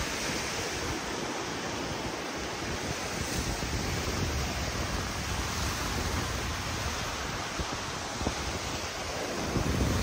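Sea surf breaking and washing up a sandy beach: a steady rush of waves, with wind rumbling on the microphone.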